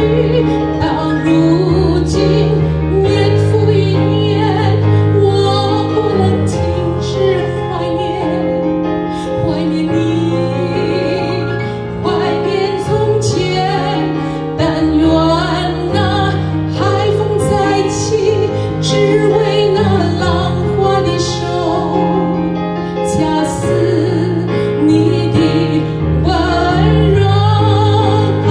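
A woman singing a slow Mandarin ballad live into a microphone, with vibrato on her held notes, over keyboard accompaniment with sustained bass notes and chords.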